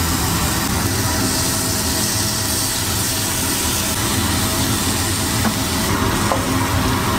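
Pineapple rings and shrimp sizzling on a hot flat-top griddle, a steady hiss over a low, steady rumble.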